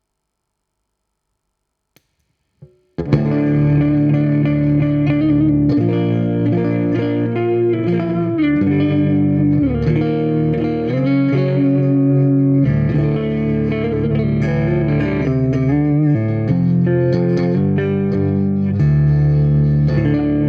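Electric guitar played through a compressor pedal, sustained chords and single notes at an even level. It starts about three seconds in, after near silence and a couple of faint clicks.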